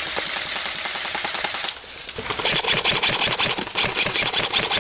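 Electric airsoft gun firing on full auto, a rapid run of clicks at about ten shots a second, starting a little over two seconds in after a stretch of steady hiss.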